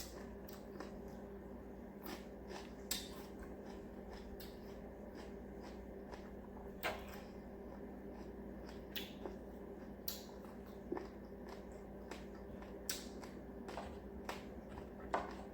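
Eating sounds: scattered soft clicks and smacks of chewing and handling food at irregular intervals, over a steady low hum.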